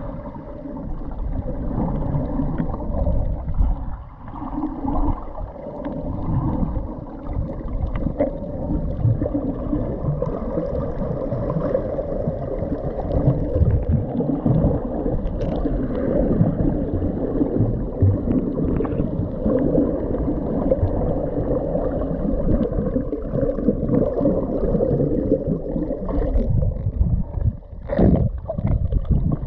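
Muffled churning and gurgling of shallow seawater heard underwater, stirred by snorkelers swimming and kicking their fins close by, with a brief sharp noise near the end.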